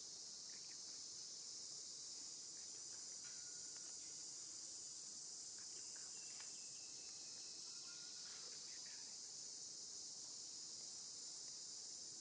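Faint, steady, high-pitched insect chorus, unbroken throughout, with a few faint short chirps lower down.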